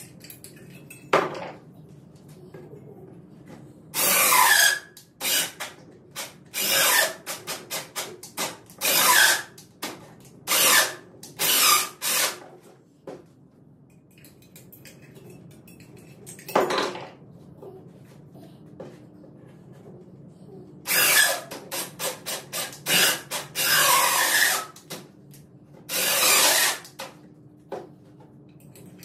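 Power drill run in short bursts, starting and stopping over and over with quick trigger pulses in between, with two busy spells and a quieter stretch between them.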